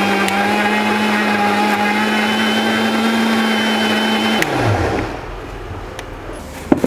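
Electric mixer grinder (mixie) running at a steady high speed, grinding chopped ripe Robusta bananas into a paste. About four seconds in it is switched off and the motor winds down with a falling hum, followed near the end by a single sharp knock.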